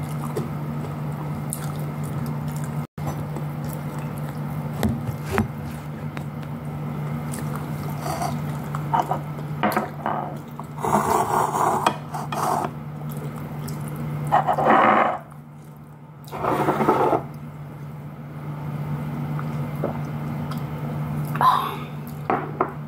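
Wet chewing and mouth sounds of someone eating rice and fried fish by hand, coming in short clusters, over a steady low hum.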